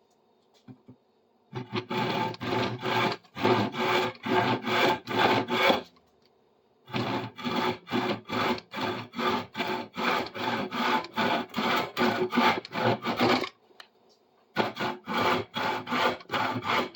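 Hand saw cutting through a piece of 1 by 2 inch hardwood, in steady back-and-forth strokes about two a second, with two short pauses between runs of strokes.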